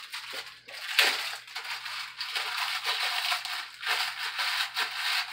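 Sleeve of wheat crackers crushed by hand inside its wrapper, a crackling, crinkling crunch that starts sharply about a second in and goes on in uneven surges as the crumbs are worked and poured out.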